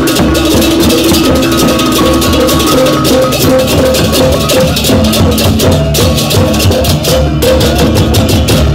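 Balinese baleganjur gamelan playing: fast, dense clashing of ceng-ceng hand cymbals over drums and steady gong-chime tones.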